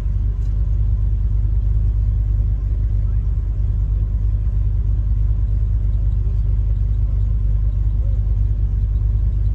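Land Rover driving along a dirt trail, heard from inside the cab: a steady low rumble of engine and road noise.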